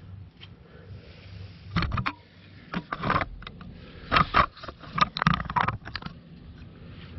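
Handling noise from a camera being repositioned under a car: four clusters of knocks and scrapes between about two and six seconds in. Underneath is a faint steady hiss from engine oil pouring in a thin stream out of the oil pan into a drain pan.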